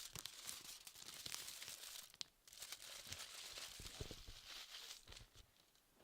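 Faint crinkling and crackling, a dense run of small crackles like material being crumpled. It breaks off briefly about two seconds in and trails away near the end.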